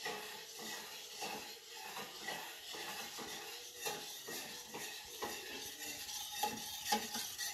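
Metal spoon stirring a thickening rice-flour paste in a small steel pot, scraping and clinking against the pot in a string of uneven strokes.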